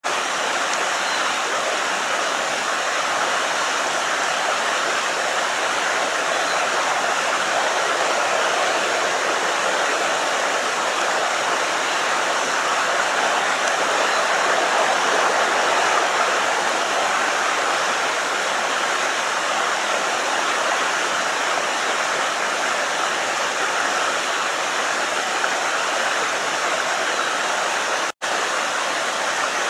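Steady rushing of a creek's flowing water, an even noise with no rise or fall, broken by a momentary dropout near the end.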